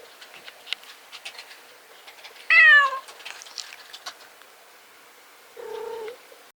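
A domestic cat's voiced yawn: a short cry that falls in pitch, about halfway through. A softer, level-pitched cry follows near the end.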